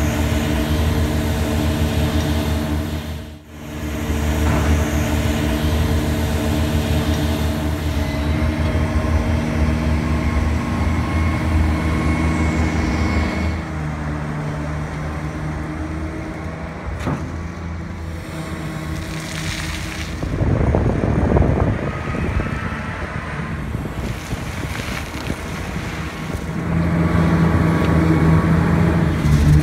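Heavy construction machinery's diesel engines running under load, with a steady low engine note that changes abruptly several times. A louder rushing passage comes about two-thirds of the way through, and the engine gets louder near the end.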